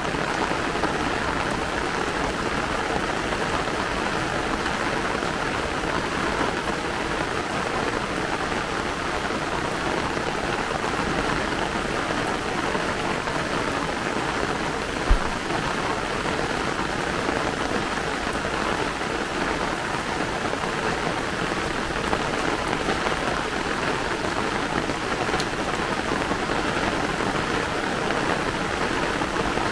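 Heavy rain falling steadily, with one brief low thump about halfway through.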